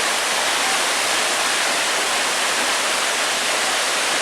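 Large waterfall crashing down, a loud, steady rushing sound with no change in level.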